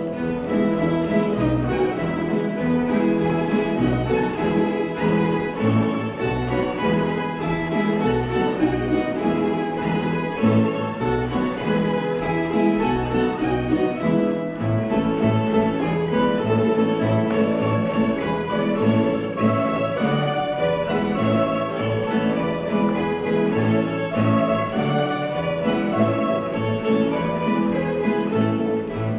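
Zagorje folk band of violins and a plucked tamburica playing an instrumental dance tune, with a bass sounding a steady repeated beat underneath.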